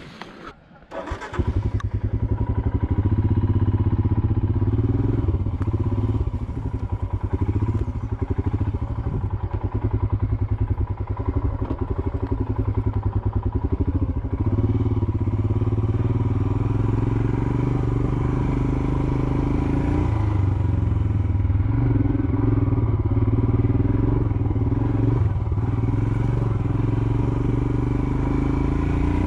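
Royal Enfield Himalayan's single-cylinder engine comes in abruptly about a second in, then runs steadily under light, varying throttle as the motorcycle is ridden off-road.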